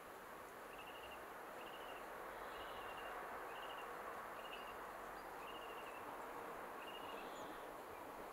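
A small bird giving short, high, ticking chirps, repeated about once a second, over a steady faint hiss.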